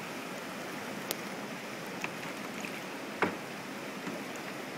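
River rapids rushing steadily over rocks. A few faint clicks, and one sharper knock about three seconds in.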